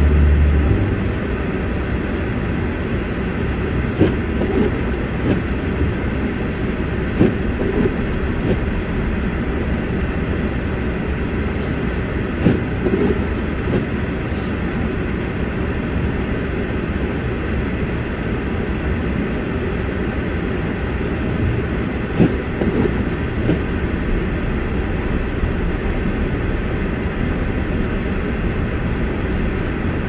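Steady rumble of a car's engine and tyres on a snow-covered road, heard from inside the cabin, with a few scattered knocks.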